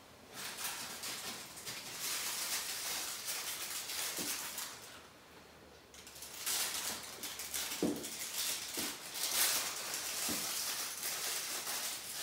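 Rustling in two stretches with a few soft knocks, from vestments and altar vessels being handled at the altar.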